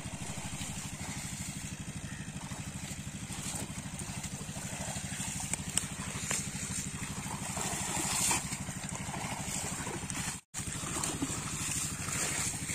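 A small engine running steadily with an even, fast throb, and a few brief splashes of water about halfway through. The sound drops out for a moment near the end.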